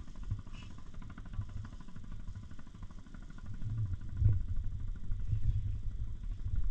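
A small fishing boat's engine idling, a steady low putter of rapid even beats, with a louder bump about four seconds in.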